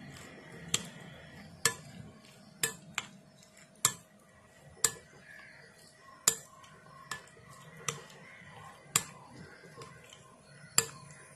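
Metal spoon clinking against a glass bowl while stirring cauliflower florets into a thick batter: a dozen or so sharp clinks, about one a second at an uneven pace, with soft stirring noise between them.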